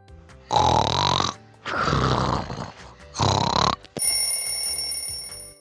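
Cartoon snoring sound effect: three loud snores, then a long steady high whistle, over light background music.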